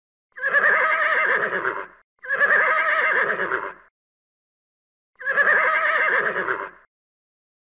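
A horse whinnying three times, each call about a second and a half long with a quavering pitch; the first two come back to back, the third after a short pause.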